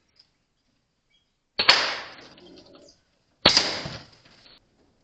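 Two air rifle shots about two seconds apart, each a sharp crack that trails off over about a second.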